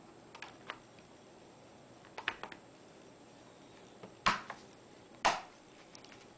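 Plastic back cover of an Acer Aspire One D255 netbook snapping into place as it is pressed down: a scatter of sharp plastic clicks, the two loudest about four and five seconds in.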